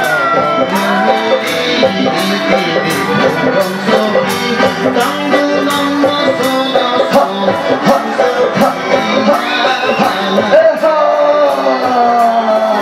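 Live band music with a male singer singing through a microphone and PA, over drums keeping a steady beat.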